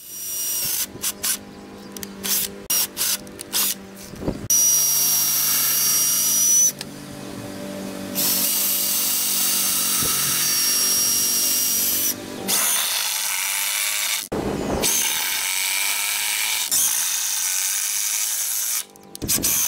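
Ryobi cordless drill boring holes into a 4x4 wooden beam to countersink and pilot-drill for lag screws. It starts with short trigger bursts, then makes several longer runs of steady drilling with a high motor whine, stopping and starting again a few times.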